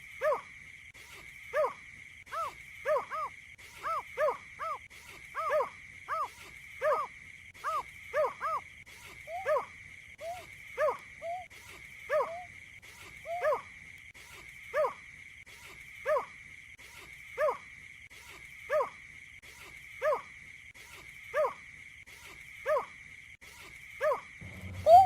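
Recorded call of a marsh bird used as a flock lure: a short hollow hooting note, repeated about every second, sometimes doubled, over a steady high hum.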